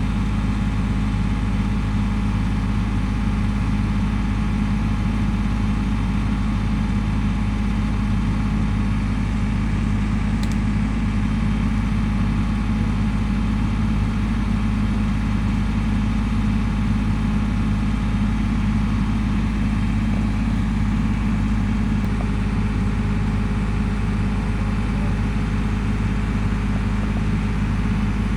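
Motor vehicle engine idling steadily: a constant low hum of even tones that does not rev or change.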